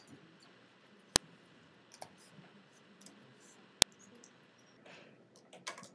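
Two sharp, isolated clicks, about a second in and again near four seconds, over quiet room hiss, with a few fainter ticks and rustles toward the end.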